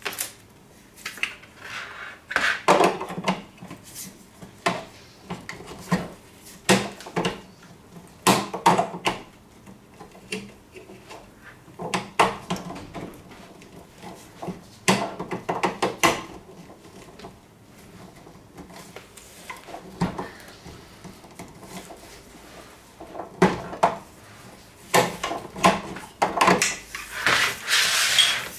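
Plastic parts of a Click and Grow Smart Garden 9 being handled and fitted together: irregular knocks and clicks of the white plastic lamp arm against the base and its posts, busier near the end.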